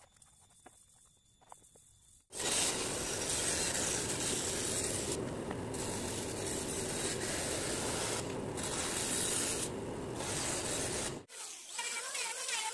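A band saw cutting through a thick teak board: a loud, steady saw noise that starts abruptly after a couple of quiet seconds with a few faint clicks, and runs for about nine seconds. It cuts off suddenly, and an electric hand planer is heard working a teak piece near the end.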